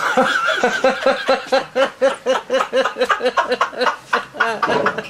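A person laughing hard in a long, unbroken run of quick, even 'ha-ha' pulses, about five a second.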